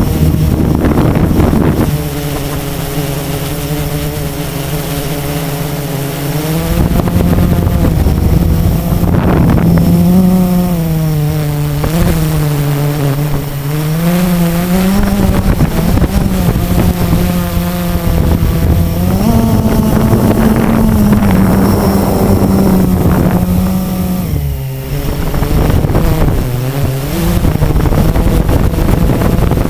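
Blade 350 QX quadcopter's electric motors and propellers buzzing, heard from the camera on board, the pitch rising and falling again and again as the throttle changes. It gets louder about seven seconds in and dips briefly near the end.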